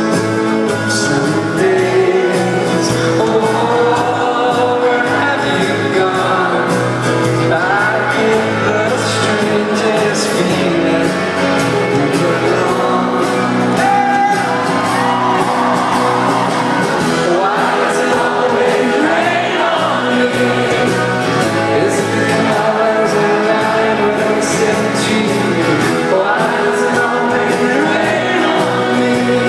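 Live rock band playing a song, with male lead singing over electric guitars and drums, heard loud from within the audience, with shouts from the crowd.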